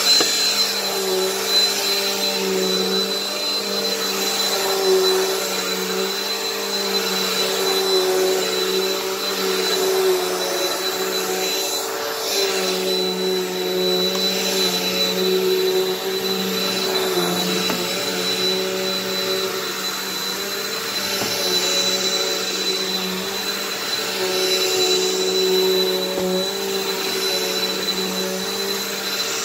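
Bissell PowerForce bagged upright vacuum cleaner running steadily: a constant motor hum with a thin high whine over airflow hiss, the level swelling and easing slightly as it works across the floor.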